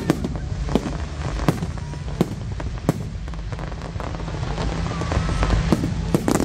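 Aerial firework shells bursting overhead in a display. Sharp bangs come about every 0.7 s for the first three seconds, with more near the end, over a continuous low rumble.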